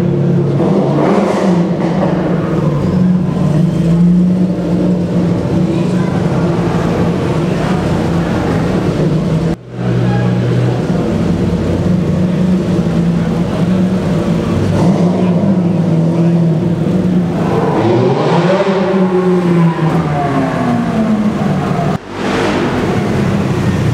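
Several car engines running at low speed in a slow-moving queue through a road tunnel. About 17 seconds in, one engine revs up and back down. The sound breaks off briefly twice.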